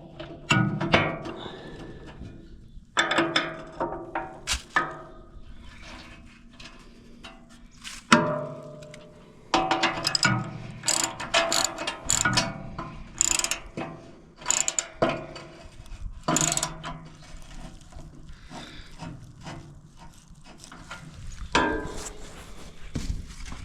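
Socket ratchet wrench clicking in short irregular spells, with metal clinks and knocks of tools against metal in between.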